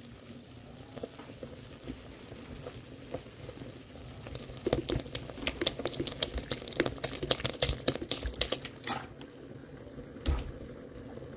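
Milk poured from a plastic bottle into a pot of hot canjica, with a dense run of glugging and splashing for about four seconds in the middle. A single knock near the end.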